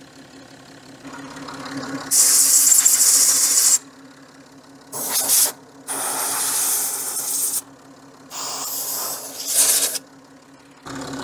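Compressed-air blow gun fired in four bursts of hiss, the first and longest about two seconds in, over the steady idle of a Citroën C6 engine that is warming up after its cooling system has been bled.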